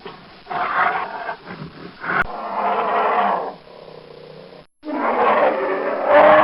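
Bear roaring in a series of rough calls, broken by a brief gap where the recording cuts about three-quarters of the way through, with the loudest call near the end.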